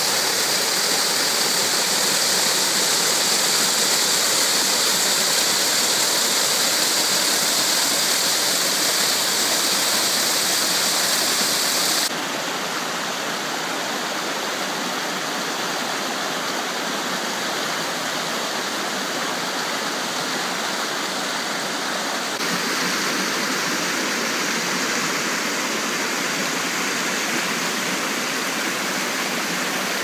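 Small waterfall splashing steadily into a rock pool. About twelve seconds in the sound changes suddenly to a softer rush of water running over boulders in a rocky stream, and about ten seconds later to a slightly louder rush of white water through a rock chute.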